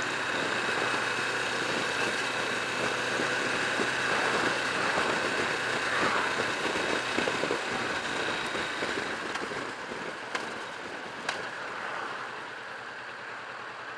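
Kawasaki Vulcan S motorcycle's parallel-twin engine idling steadily, easing slightly in the last few seconds, with two faint clicks near the end.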